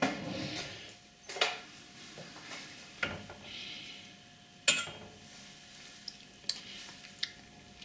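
Stirring thick cream sauce in a stainless steel saucepan with a wooden spoon and dipping a metal teaspoon in to taste it. A few sharp clinks and knocks of spoon on pan, the loudest a little under five seconds in, with lighter ticks near the end.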